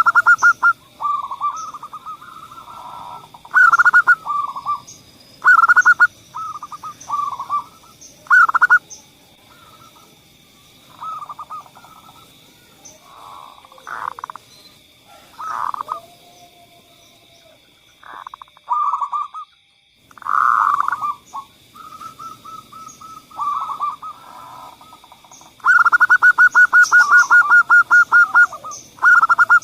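Zebra doves (perkutut) cooing: phrase after phrase of soft, quickly repeated notes, with several phrases overlapping, and a long fast run of notes near the end.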